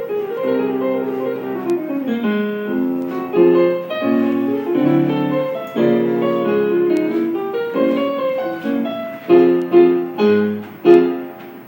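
Salsa music led by piano, playing quick repeated chord patterns, with a few sharp accented hits near the end.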